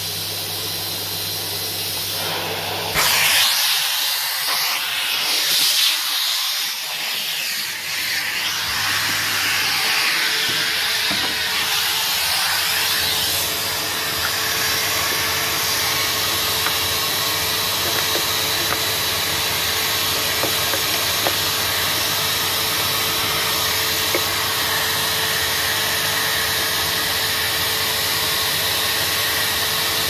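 Canister vacuum cleaner running steadily with a constant rushing suction hiss. About three seconds in, the sound changes abruptly: the low hum drops away and a louder airy rush carries on.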